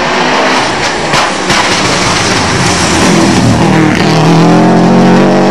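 A Subaru Impreza rally car's turbocharged flat-four engine running flat out as the car comes past, with loud road and tyre noise. About four seconds in the engine note dips briefly, then holds steady at high revs.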